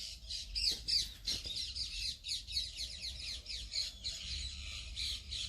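Parakeet calling, a rapid, continuous stream of high chattering notes.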